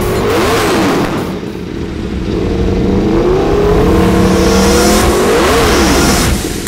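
Engine revving as a sound effect: a quick blip of rising then falling pitch about half a second in, a long, slowly climbing pull, and another blip near the end. A rising hiss ends in a sharp hit just before the close.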